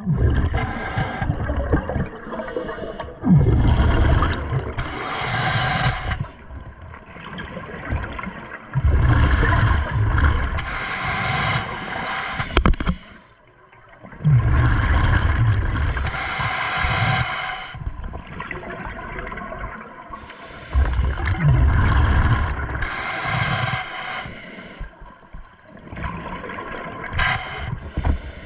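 Scuba diver breathing through a regulator underwater: four slow breaths, each a hiss of inhaled air followed by a low rumbling gush of exhaled bubbles, about every six seconds.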